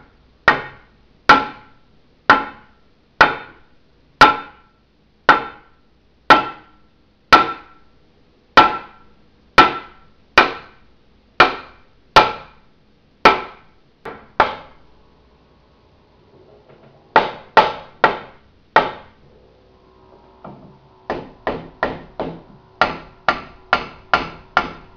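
Rubber mallet tapping a stuck, greased rod through the mounting holes of a Schwinn 430 elliptical frame. Steady blows come about one a second, then after a brief pause four more, then a faster run of lighter blows near the end.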